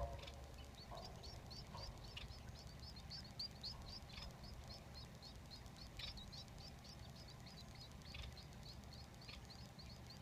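Society finch nestlings giving faint, high begging chirps in a quick steady run of about four a second, the sound of chicks calling to be fed, with a low hum underneath.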